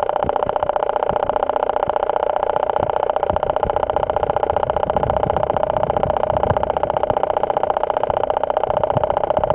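Steady rushing, fast-fluttering underwater noise of river current heard through a submerged camera.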